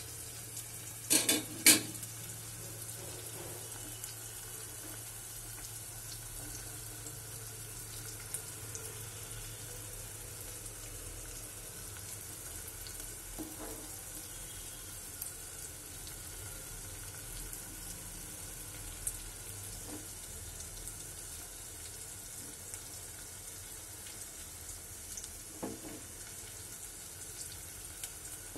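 Rohu fish curry with potatoes sizzling steadily in a pot of masala on the stove. Two sharp knocks about a second and a half in, with a few fainter clicks later.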